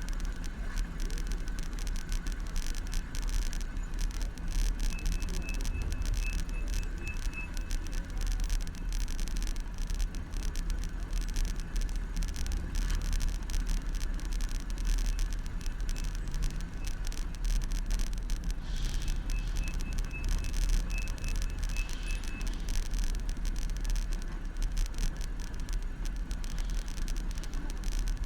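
Steady rumble of a moving bicycle picked up by a handlebar-mounted camera: road vibration and wind, with city traffic around it. Twice, for a few seconds, a faint high pipping repeats evenly.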